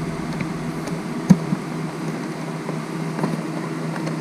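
A steady low hum with a few small plastic clicks and ticks from the tail light connector and wiring being handled; one sharper click comes about a second in.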